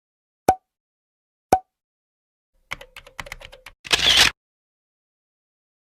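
Edited intro sound effects: two sharp clicks about a second apart, then a quick run of typing-like clicks, ending in a short burst of hiss.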